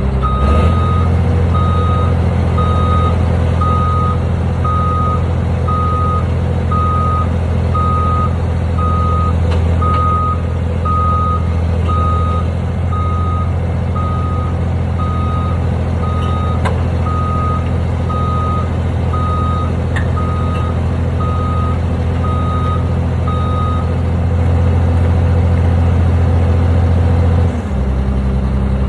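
Reversing alarm on a piece of construction equipment, beeping about once a second over the steady drone of its diesel engine. The beeping stops near the end, and the engine note drops shortly after.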